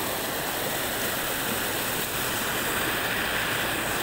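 A small river swollen by heavy rain, muddy floodwater rushing fast and churning down a stone-walled channel with a steady rush.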